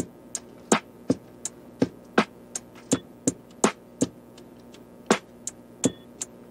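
Background music with a sparse electronic beat: short, sharp percussive hits about three times a second over a faint low backing.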